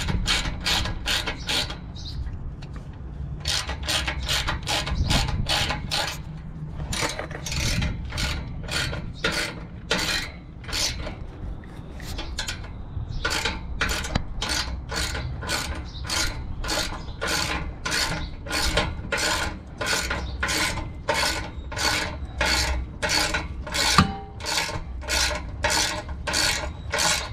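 Socket ratchet wrench clicking in quick, even strokes as it tightens a bolt at the exhaust pipe's V-band clamp joint. There are two short pauses, and one sharper knock of metal on metal comes near the end.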